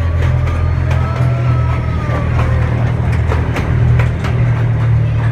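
Steady, loud low rumble with scattered light clicks.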